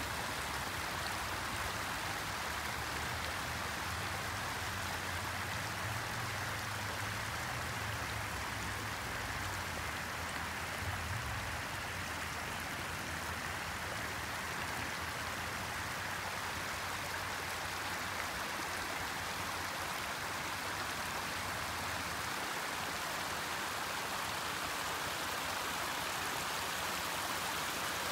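Steady rush of flowing water, with a low rumble underneath for about the first half.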